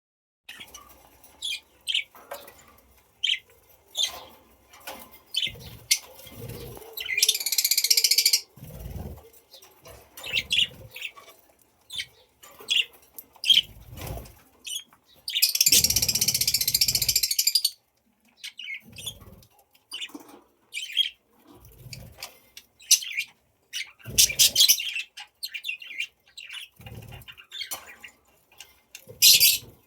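Budgerigars chirping in many short, high calls, with scattered soft knocks. Two longer noisy bursts, the longer and loudest about halfway through, lasting about two seconds.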